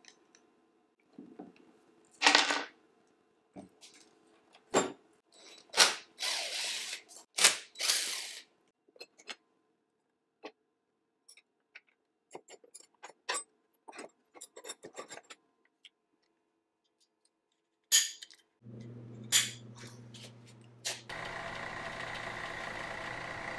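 Metal parts and hand tools clicking, knocking and scraping on a workbench while a spot welder is taken apart. Near the end a milling machine motor starts with a steady hum, then runs louder as its drill bit cuts into the welder's thin metal cover.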